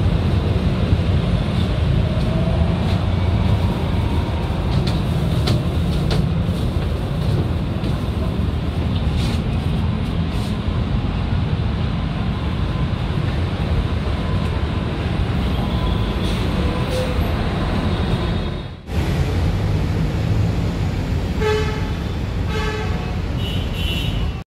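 Steady road traffic at a busway junction: the low rumble of bus and car engines with motorbikes passing. The sound drops out for a moment about three-quarters through, and a few short horn toots follow near the end.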